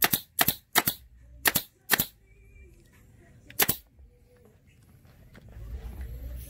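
Surebonder pneumatic staple gun firing staples through thick faux alligator-skin vinyl into a seat base, each shot a sharp double crack. Five shots come in quick succession in the first two seconds, and one more a little past three and a half seconds in.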